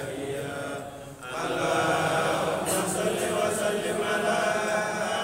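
A congregation of men chanting together in a continuous religious chant. It dips briefly about a second in, then comes back louder.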